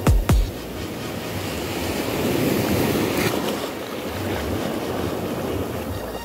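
Sea waves washing onto a beach: a steady rushing surf that swells a little in the middle, with wind buffeting the microphone. A last thump of background music right at the start.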